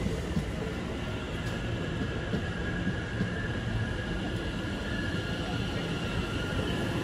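London Overground Class 710 electric multiple unit running past on the rails: a steady low rumble of wheels and running gear, with a faint high electric whine over it.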